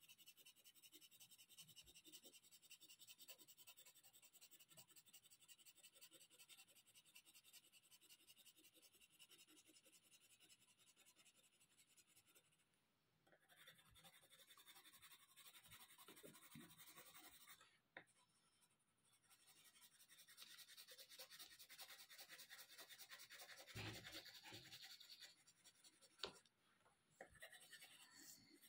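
Faint scratching of a colored pencil lead rubbing over paper in quick back-and-forth shading strokes. It stops briefly a few times, and there are a couple of small ticks and a soft knock.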